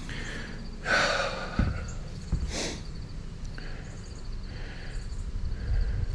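A man breathing hard, with a loud exhale about a second in and a few more breaths after, over a steady low rumble.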